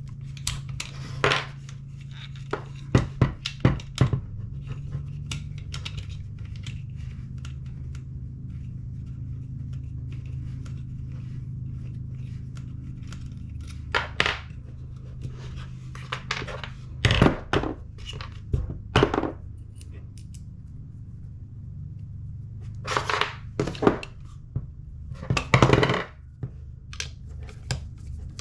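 Irregular metallic clicks, clinks and knocks of rifle parts and tools being handled as a Tokyo Marui MWS gas blowback airsoft rifle is taken apart, over a steady low hum. The clicks come in denser, louder clusters a little past halfway and again near the end.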